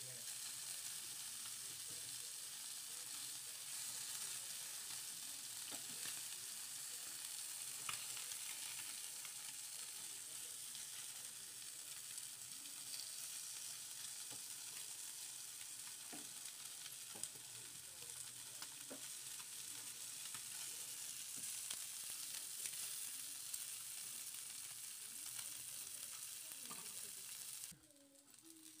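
Spice-coated fish pieces (bombil and surmai) shallow-frying in hot oil in a pan: a steady sizzle, with a few clicks from a metal spatula against the pan. The sizzle drops away sharply near the end.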